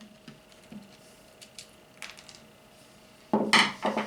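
Light clicks and knocks from handling the opened-up hammer drill, then near the end a sudden loud clatter of its loose parts being shaken or moved.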